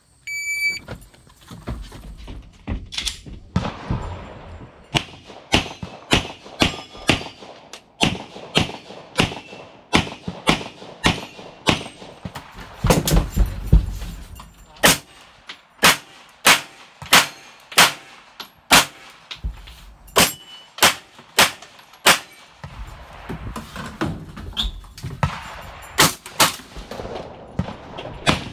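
Electronic shot-timer start beep, then a long string of gunshots, mostly pistol, fired from inside a van during a timed 3-gun stage: quick pairs and rapid strings with brief pauses, dozens of shots in all.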